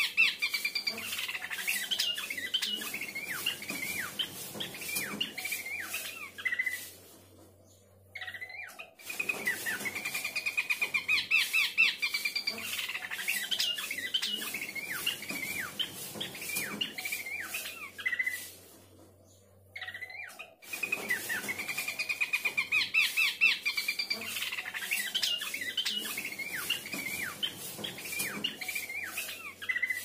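Horsfield's babbler singing: fast runs of chirping, whistled notes, each bout opening with a quick trill. The song comes in three long bouts, broken by short pauses about eight and twenty seconds in.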